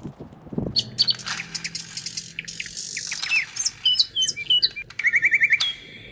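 Songbirds chirping and calling: short, quick notes that swoop up and down, and near the end a fast run of about eight repeated notes.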